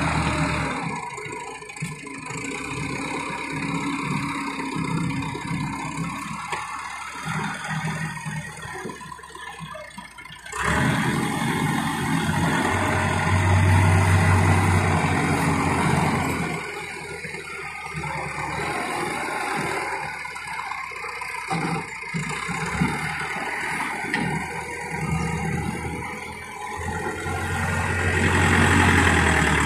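Farm tractor diesel engines running. The engine note jumps up sharply about ten seconds in and stays loud for several seconds before easing back, then rises again near the end.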